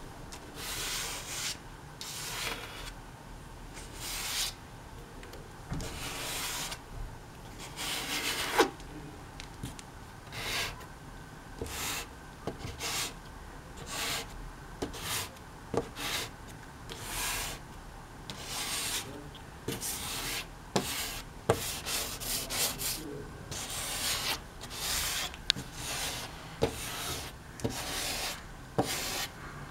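A comb scraped back and forth across wet oil paint on thick paper, in repeated rasping strokes about one a second, with a run of quicker short strokes about two thirds of the way through and a few sharp ticks.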